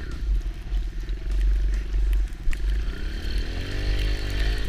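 Kawasaki KLX110 dirt bike's small air-cooled four-stroke single-cylinder engine running under throttle while riding in snow. Its pitch rises over the last second or so as it revs up.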